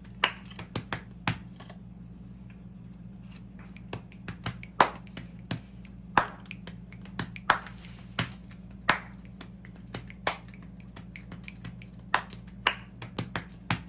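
Sharp, irregular clicks and ticks of a steel brake cable and small metal parts being handled and fitted at a bicycle's cable-operated disc brake caliper, with a steady low hum underneath.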